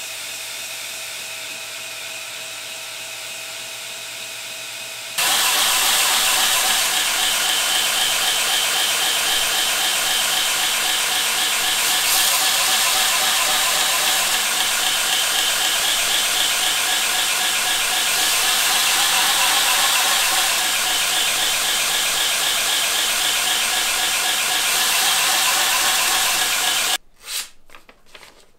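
Bench belt grinder sharpening a Fiskars X7 axe head. The grinder first runs steadily, then about five seconds in a loud, continuous squealing rasp of the steel on the abrasive belt takes over. Near the end the grinding stops abruptly, and there are a few short rustles of the sharpened edge slicing through paper.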